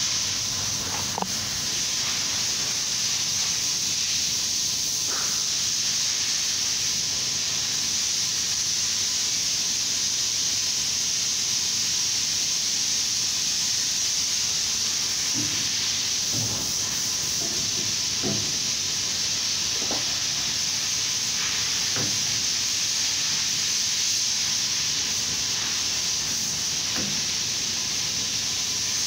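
A loud, steady hiss, with a few faint knocks as a wheel is handled and fitted onto a wheel balancer.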